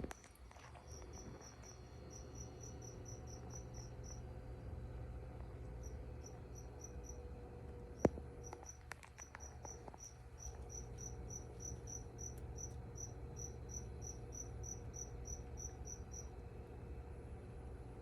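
A cricket chirping: runs of short, high chirps at about four a second, breaking off for a few seconds in the middle. A single sharp click about eight seconds in, over a steady low hum.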